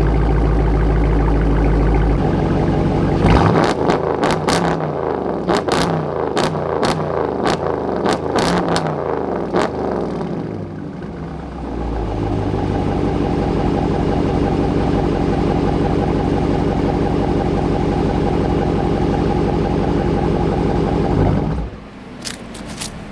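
Dodge Charger R/T Daytona's V8 running, revved repeatedly for several seconds with sharp cracks among the rising and falling revs, then settling to a steady idle. The engine cuts off suddenly near the end.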